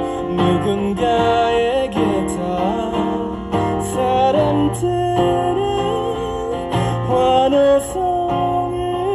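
A man singing with long held notes, accompanying himself on a strummed acoustic guitar.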